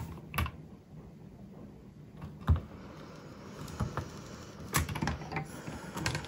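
Scattered light taps, clicks and knocks of hands working a clear acrylic stamping platform: the hinged lid is pressed down onto a clear stamp and then swung open. The loudest knock comes about two and a half seconds in, with a quick cluster of clicks in the last two seconds.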